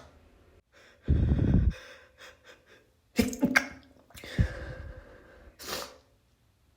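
A person with a congested nose sneezing, with gasping breaths in between; the loudest burst, about a second in, blasts the microphone with a low rumble.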